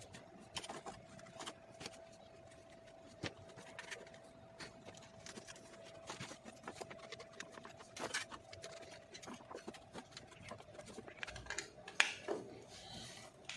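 Faint, irregular clicks, taps and scrapes of hand work on a household electrical switchboard, its plastic sockets, switches and wiring being handled, with a louder click about twelve seconds in. A faint steady tone runs underneath.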